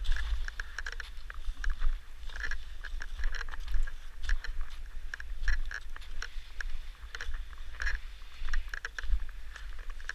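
Skis scraping and swishing over packed snow in short, irregular strokes, with wind rumbling on the microphone.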